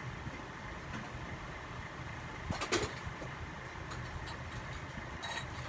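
Motor of a vintage NuTone Verandah II Deluxe ceiling fan running with a steady low hum. Two short clicks come through, one about two and a half seconds in and a weaker one near the end.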